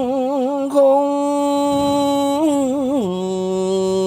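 A man singing vọng cổ unaccompanied, drawing one syllable out into a long held note with wavering ornaments, then sliding down to a lower held note about three seconds in.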